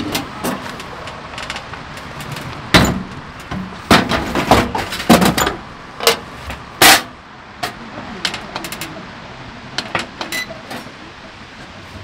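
Scattered clicks, knocks and clunks of plastic and metal from handling a portable oil heater after refuelling: the fuel can and caps being moved, the heater's fuel lid closed and its buttons pressed. The sharpest knocks come about three to seven seconds in, with lighter ticks later.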